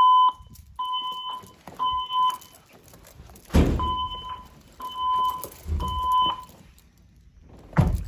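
Fire alarm voice-evacuation speaker sounding the temporal-three evacuation tone: two sets of three steady, high beeps, each about half a second long, with a pause between the sets. Dull handling thumps come about three and a half seconds in and again near the end.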